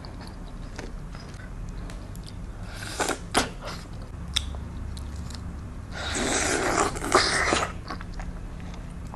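Close-miked eating sounds of a person biting and chewing soft, juicy peeled tropical fruit, with scattered wet mouth clicks. A louder wet stretch of chewing comes about six seconds in.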